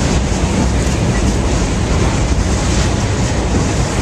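Freight train rolling across a steel girder bridge overhead: a loud, steady rumble of wheels and cars on the bridge, heaviest in the low end.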